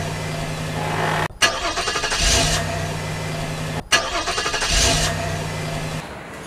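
Car engine being cranked on the starter and catching, then running with a steady hum. The start is heard twice, each time after an abrupt cut, and the engine drops quieter near the end.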